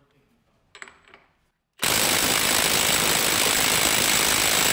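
Milwaukee M18 FUEL Gen 2 half-inch mid-torque impact wrench hammering steadily on a 33 mm semi-truck lug nut tightened to 500 ft-lb, starting a little under two seconds in; the nut has not yet broken loose. A few faint clicks come before the hammering starts.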